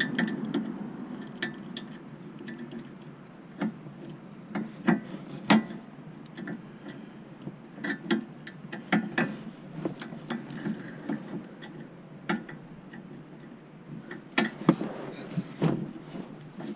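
Ratchet wrench clicking in short, irregular strokes as the new end-link nuts are checked for tightness.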